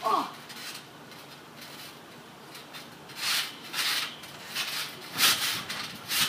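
Bodies and shoes scuffing and rubbing on a trampoline mat in several short bursts, the loudest about five seconds in as a wrestler is dropped onto the mat. A short shout falling in pitch at the very start.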